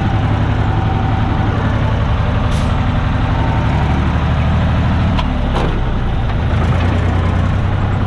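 Farm tractor engine running steadily as it pulls slowly away with a fully loaded manure spreader carrying grain. There is a sharp clunk about five and a half seconds in, and the engine note drops after it.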